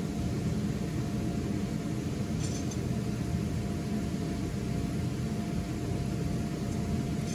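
Electric blower of an inflatable waterslide running steadily: a low, even hum with a faint steady whine above it.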